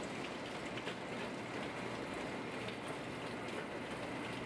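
Steady workshop background noise in a factory hall: an even hiss with faint light clicks and rattles.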